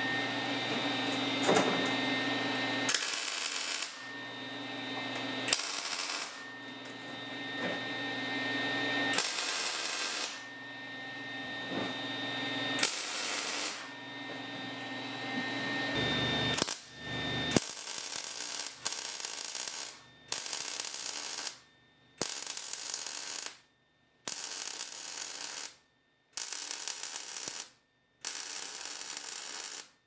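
MIG welder arc welding steel in a series of bursts. In the first half a few short bursts sound over a steady low hum; from a little past halfway the beads come regularly, each about a second and a half long, with brief pauses between.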